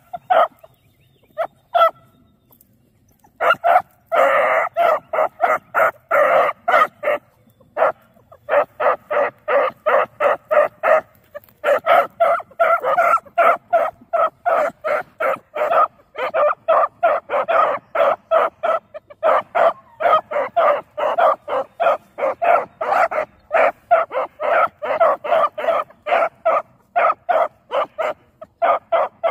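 Beagle pups giving tongue on a rabbit's scent trail: quick, high-pitched yipping barks, about three or four a second, which start in earnest a few seconds in after a few single yips and keep going with only short breaks.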